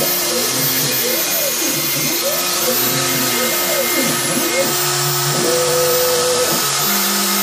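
Homemade CNC router milling wood: the spindle runs with a steady hiss while the stepper motors whine, their pitch sweeping up and down over and over as the axes speed up and slow down, and holding steady notes in between.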